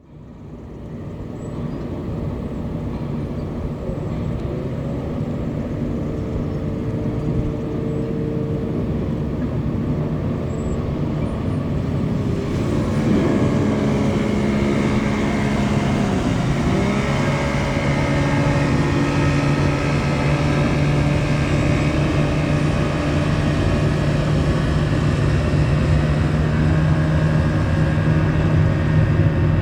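Heavy engines running steadily, their pitch dipping and rising briefly in the middle before settling into a steady low drone.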